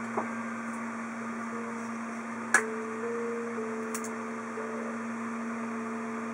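Steady electrical hum with a fainter tone that steps between two pitches on and off, and a sharp knock about two and a half seconds in.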